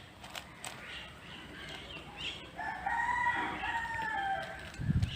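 One long animal call, held for about two seconds and falling slightly in pitch at its end, after a few faint clicks.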